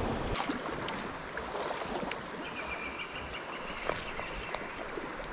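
Steady rush of a river flowing over a stony bed, with a few light clicks. A faint high steady tone runs for about a second and a half in the middle.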